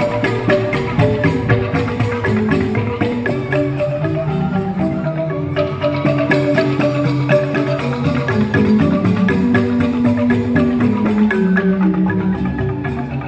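Joged bumbung gamelan: an ensemble of bamboo xylophones (grantang) playing fast, dense mallet strokes over sustained pitched notes, with a steady percussive pulse.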